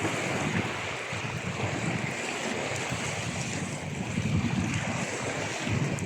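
Sea waves washing onto a shore, a continuous surf noise that swells and eases.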